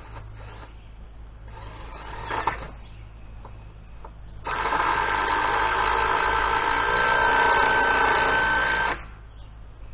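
A power tool's small electric motor running steadily for about four and a half seconds, starting about halfway through and cutting off suddenly, after a short knock.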